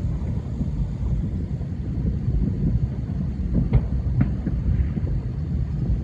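Thousands of distant fireworks going off across the city, merging into a continuous low rumble like rolling thunder, with a few sharper pops standing out about midway.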